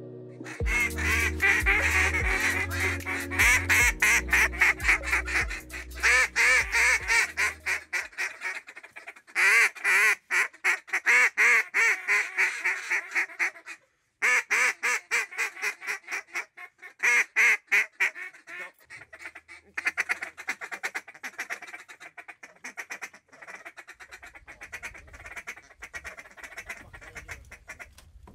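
Mallard duck calls blown hard in fast runs of quacks and chatter, with short breaks between runs; loud for most of the first half, then fainter toward the end. A low music bass plays under the first several seconds.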